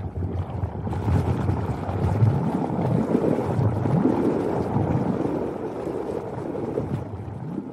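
Ocean surf: waves breaking and washing in, a steady, deep rush that swells about a second or two in and eases toward the end.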